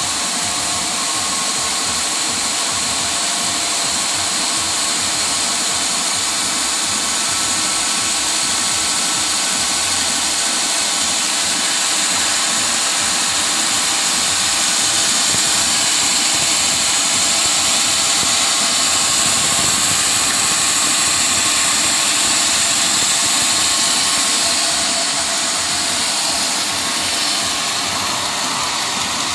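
Engine-driven portable sawmill running steadily with a high-pitched saw noise, a little louder for a stretch in the middle.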